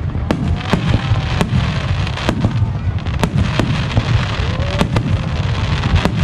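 Aerial fireworks shells bursting in quick succession: sharp bangs, about two a second at uneven spacing, over a continuous low rumble from the barrage.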